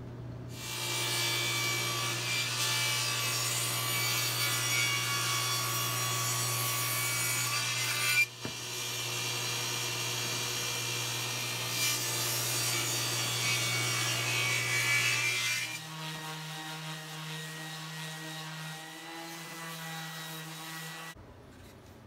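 Table saw running and ripping thin wood strips. The cutting noise breaks off briefly about eight seconds in. About sixteen seconds in the saw runs on more quietly, then stops about a second before the end.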